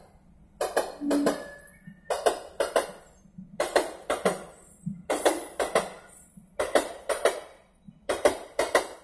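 Steel wheels of passing passenger coaches clattering over a rail joint. Each group holds three or four quick clacks, and the groups come about every one and a half seconds.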